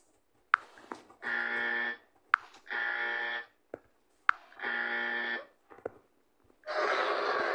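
Countdown buzzer sound effect: three identical steady buzzing beeps about a second and a half apart, each with a sharp click just before it. Loud music starts near the end.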